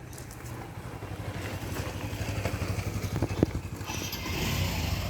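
A small engine running steadily with a fast low pulse, with a brief sharp sound about three and a half seconds in.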